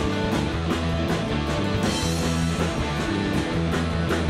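Live rock band playing an instrumental passage between sung lines: electric guitars, electric bass and drum kit, with a steady drum beat.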